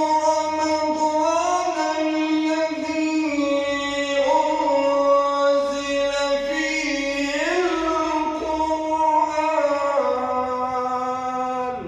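Quran recitation in a melodic chanting style: one reciter's voice holds a single long, ornamented phrase. It rises in pitch a couple of times and falls away near the end before breaking off.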